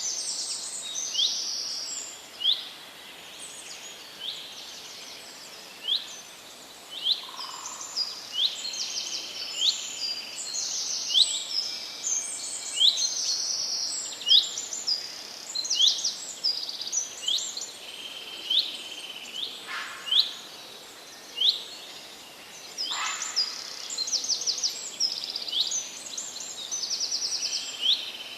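Birds calling and singing: many short, high chirps that sweep downward, several a second, with a few quick trills, over a steady background hiss.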